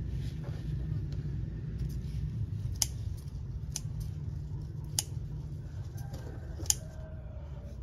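Four sharp clicks at irregular intervals, about a second or more apart, over a steady low rumble.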